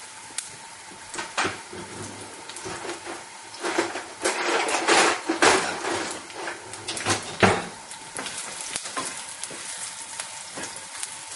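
Sliced shiitake mushrooms frying in oil in a nonstick pan, sizzling steadily with a few louder surges, and a spatula stirring them near the end.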